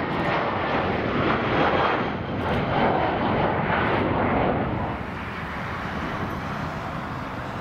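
Airliner jet engine noise, a loud steady rush as the plane passes, dropping off about five seconds in.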